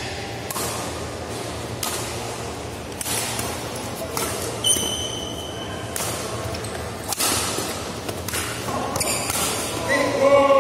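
Badminton rally: sharp racket strikes on the shuttlecock roughly every second or so, with a shoe squeaking on the court floor once about halfway through. Voices rise near the end as the rally finishes.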